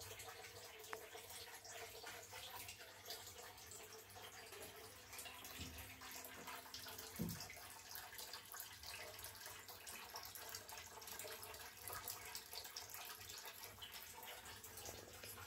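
Faint, steady trickle and dripping of water in a turtle tub, over a low hum, with a single soft thump about seven seconds in.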